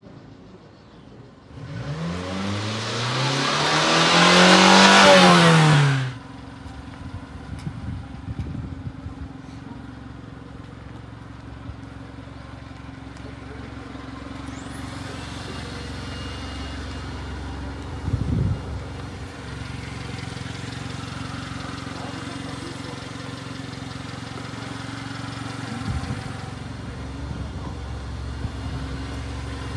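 Small kei-truck engine, the 1993 Subaru Sambar's 660 cc four-cylinder, first revving up and back down loudly for about four seconds and cutting off abruptly about six seconds in, then running at a steady idle with a couple of soft thumps.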